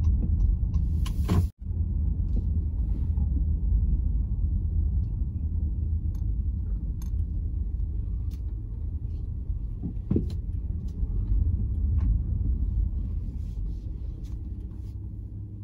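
Low, steady rumble of a car's engine and tyres heard from inside the cabin as it drives slowly, cutting out for an instant about a second and a half in.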